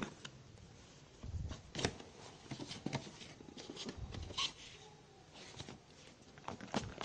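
Cardboard phone packaging being handled: scattered taps, scrapes and rustles as the paperboard box and its sleeve are moved about and shifted against each other.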